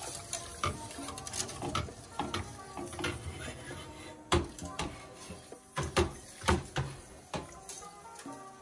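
Wire whisk stirring sauce in a stainless steel pot, clinking and scraping against the pot's sides, with several sharper knocks between about four and seven and a half seconds in. Faint background music runs underneath.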